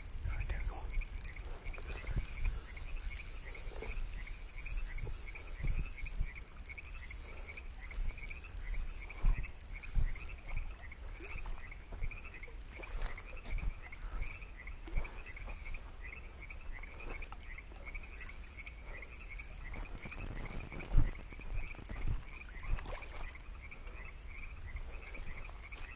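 Night chorus of frogs croaking in a steady, quick rhythm over a continuous high trill of insects. Scattered thumps and rustles of footsteps on a dirt path come through, the loudest about 21 seconds in.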